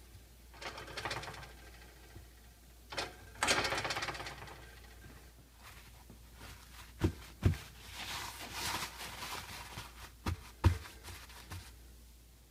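Paper towels rustling and crinkling as they are pressed over freshly fried potato wedges to blot off the oil, in several short spells, with two pairs of dull thumps in the second half.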